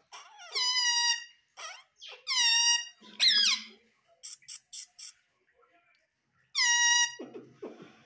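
Indian ringneck parrot giving four loud, high calls, each falling in pitch. Between the third and fourth call there is a quick run of sharp ticks.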